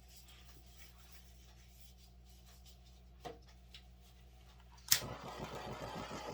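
A handheld hairdryer switched on with a sharp click near the end, then running with a steady rushing of air. Before it, only faint small taps over a low hum.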